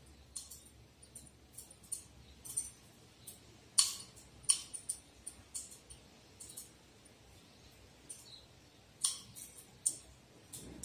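Faint, irregular sharp clicks and pops, the loudest about four seconds in and again near nine seconds: blue silica gel beads crackling in a glass beaker as they take up the water poured over them.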